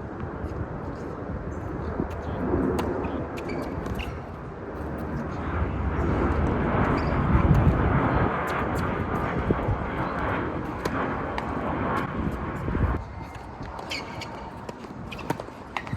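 A low rumbling noise that builds over several seconds, then drops off sharply near the end, with scattered sharp knocks through it.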